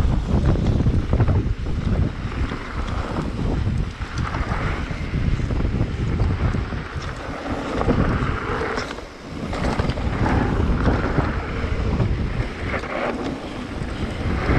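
Wind buffeting the microphone over the rumble and rattle of a mountain bike running fast down a dry dirt trail, with a brief lull about nine seconds in.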